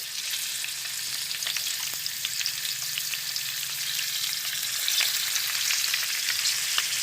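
Squid frying in hot oil in a pan: a steady sizzling hiss dotted with small crackles and pops that grows slightly louder as it goes.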